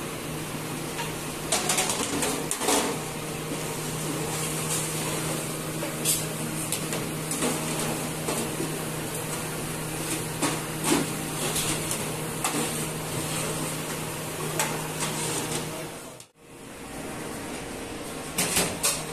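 Kitchen ambience while food is dished out: a steady low hum under scattered sharp clinks and scrapes of metal ladles against steel pots and ceramic plates.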